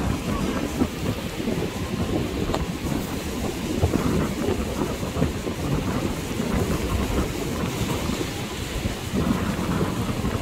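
Wind buffeting the microphone in uneven gusts over the steady wash of surf breaking on a sandy beach.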